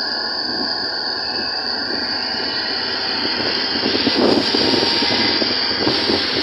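Vehicle engine and road noise, with wind rushing past, heard from a vehicle driving along a hill road. A steady high-pitched hiss runs under it, and the noise gets louder and rougher about four seconds in.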